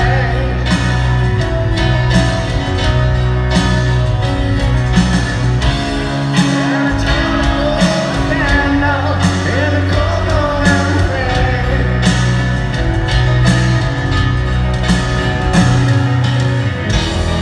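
Live rock band playing a slow power ballad in an arena: a male lead vocal over grand piano and sustained chords, with a slow, steady drum beat, heard from the stands.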